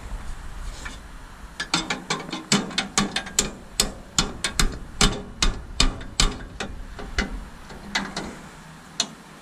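Hand ratchet wrench clicking in quick, uneven strokes, about three or four clicks a second, then a few more near the end, as a bolt is worked loose.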